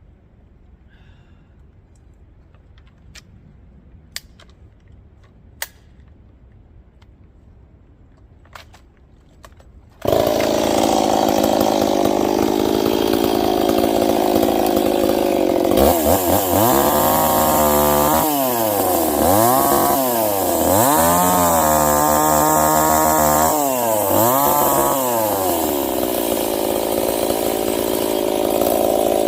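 A few faint clicks, then about ten seconds in a ported Stihl 026 two-stroke chainsaw starts suddenly, loud and at high revs. Its pitch falls and rises again about four times before it runs steady.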